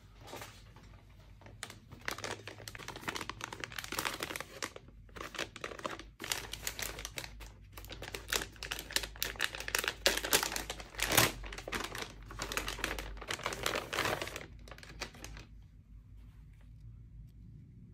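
Packaging being crinkled and torn open during unboxing: a dense, crackling run of rustling that starts about a second and a half in and stops a couple of seconds before the end.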